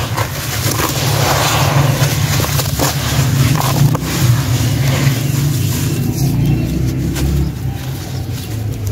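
Hands squeezing and crumbling wet sand-cement and dirt chunks in a water-filled basin: gritty crunching and crackling with scattered sharp cracks, over a steady low rumble.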